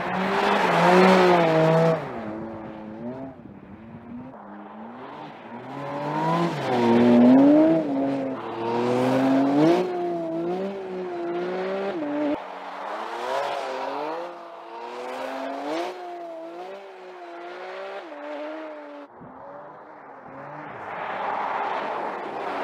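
Porsche 718 Cayman GT4 RS's naturally aspirated flat-six revving up and down again and again as the car drifts on snow and ice, with stretches of hissing noise in between.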